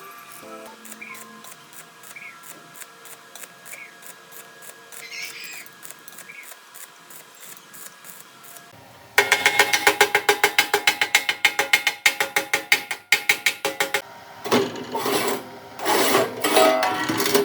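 A hand tool rasping back and forth on metal in rapid, even strokes, starting about nine seconds in after a quieter stretch of light ticking. The strokes turn coarser and noisier near the end.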